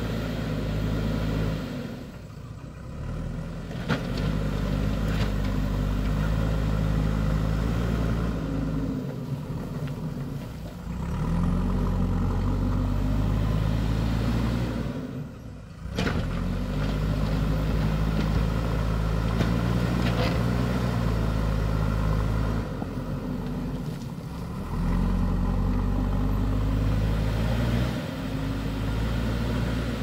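JCB backhoe loader's diesel engine working under load as the front bucket pushes soil, revving up and easing off several times. A few sharp knocks come through.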